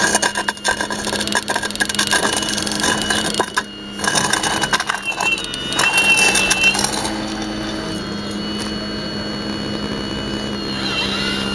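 Radio-controlled scale Hitachi 870 excavator: its motors whine steadily while the bucket scrapes and crunches through concrete rubble and gravel for about the first seven seconds, then the motor whine goes on alone.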